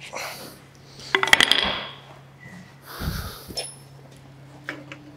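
Metal-on-metal clinks and knocks from a bare engine block being handled and turned on its engine stand: a quick cluster of sharp clinks about a second in, a low thud near three seconds, then a few lighter clicks.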